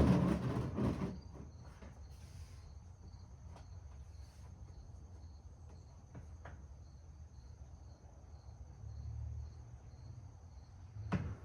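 Insects chirping steadily in a high, even, pulsing trill, with a brief rustle in the first second and a few faint clicks.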